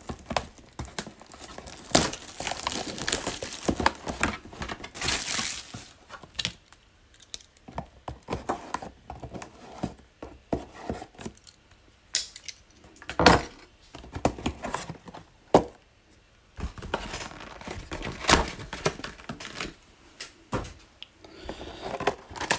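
A trading-card hobby box being opened by hand: its wrapping tearing and crinkling, with scattered knocks and thumps of cardboard as the box and its packs are handled.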